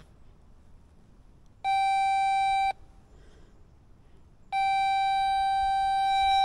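Two steady electronic beep tones at one fixed pitch: a shorter one of about a second, then a longer one of about two seconds. Each starts and cuts off abruptly.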